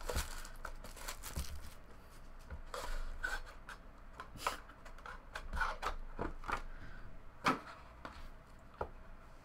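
Cardboard card box being handled: the box slides out of its cardboard sleeve and its lid is lifted, giving scraping and rubbing with scattered light taps and clicks, the sharpest about three quarters of the way through.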